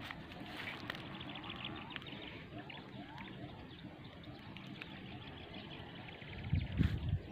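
Faint bird calls and trills over a quiet outdoor background, with a brief low rumble of wind on the microphone near the end.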